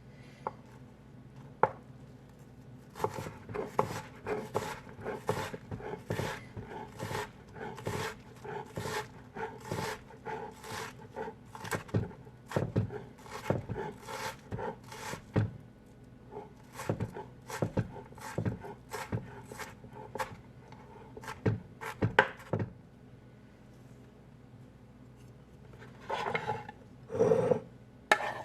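Knife chopping on a wooden cutting board, a steady run of strokes about two a second that stops a few seconds before the end. Then a few short scrapes, like food being pushed across the board.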